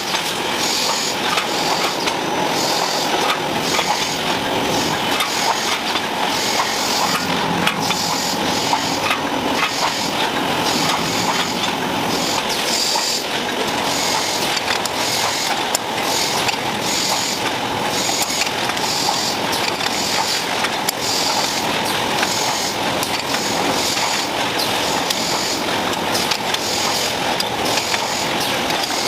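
Production-line machinery running with a steady mechanical clatter and a sharper pulse repeating about once a second.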